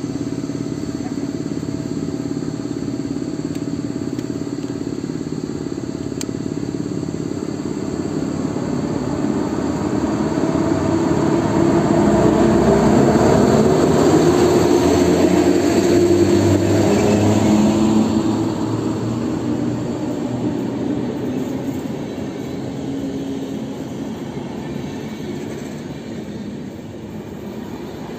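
EU07 electric locomotive hauling a passenger train past the platform. It makes a steady rumble and hum that swells as the locomotive draws level, about halfway through, then eases as the coaches roll by.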